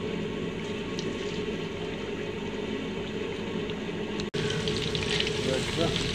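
Chicken fingers deep-frying in hot oil in a kadai: a steady sizzle with crackling. About four seconds in the sound drops out for an instant, and after that the frying is a little louder, with sharper crackles.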